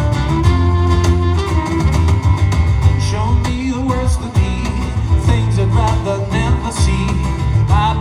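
Band music in a country-folk style, with guitar and fiddle over a steady bass.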